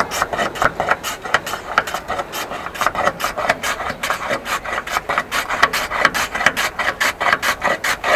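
A block of ice pushed quickly back and forth across a wooden ice-shaving board, shaving ice. It makes a fast, even run of scraping strokes, about four or five a second.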